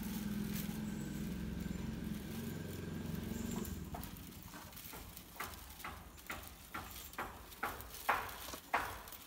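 A steady engine hum, like an engine idling, fades out after about three and a half seconds. Then come irregular light clicks and rattles of dry coconut-leaf midribs knocking together as a broom bundle is bound by hand.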